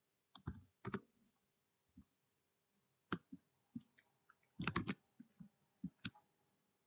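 Computer keyboard keystrokes: irregular single clicks with pauses, and a quick run of several keys about two-thirds of the way through.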